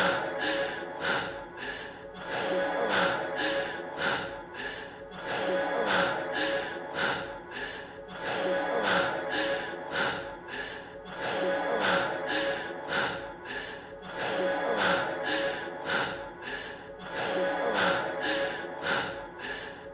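A man's heavy, panting breaths, drawn in and let out in a pattern that repeats every few seconds, over a quiet sustained musical tone.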